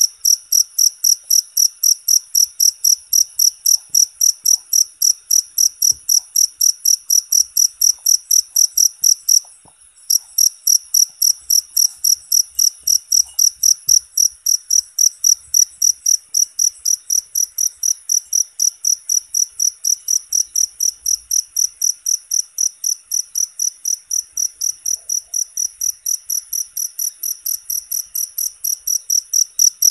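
A cricket chirping loudly and steadily in a fast, even rhythm of about three high-pitched chirps a second. It breaks off for about half a second roughly ten seconds in.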